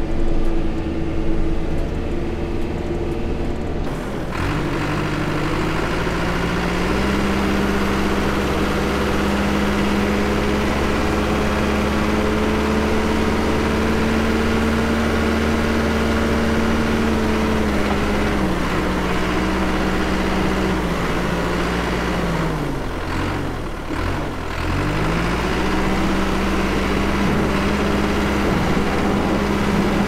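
Cat 420F backhoe loader's diesel engine working steadily as it pushes snow. Its revs climb about four seconds in and hold. They ease off a bit past the middle, dip briefly about three-quarters of the way through, then pick up again.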